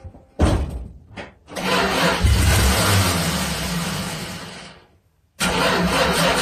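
NASCAR stock car's V8 engine coughing twice as it cranks, then catching and running loud for about three seconds before dying away. After a brief silence, loud engine running starts again abruptly near the end.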